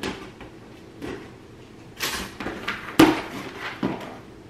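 Cardboard shipping box being opened by hand: a series of separate scrapes, tearing and knocks of the cardboard, the sharpest knock about three seconds in.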